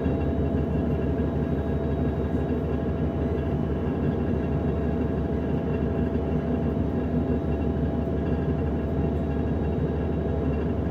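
Class 425 electric multiple unit running at a steady speed, heard from inside the passenger car: an even rolling rumble with a constant whine made of several steady tones.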